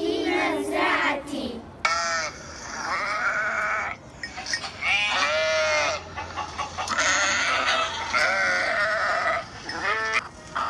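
Sheep bleating: a string of wavering calls, each up to about a second long, with short gaps between them.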